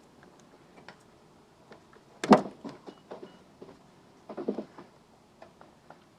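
Metal clinks and knocks as a battery hold-down strap and its bolts are worked loose and lifted off in the engine bay. There is one loud knock about two seconds in and a quick run of knocks around four and a half seconds in.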